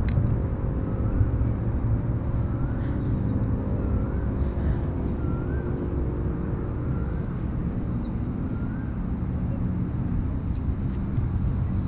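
Steady low outdoor rumble, with a short warbling whistle repeated about once a second and faint high chirps over it. A steady hum joins in about two seconds in and fades after about seven.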